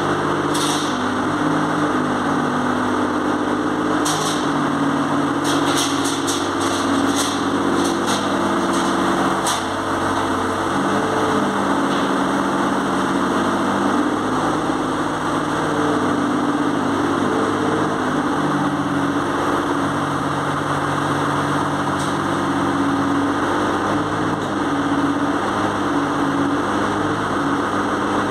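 JCB 803Plus mini excavator's diesel engine running under hydraulic load while digging, its pitch shifting up and down as the arm and bucket work. A run of sharp clicks comes between about 4 and 10 seconds in.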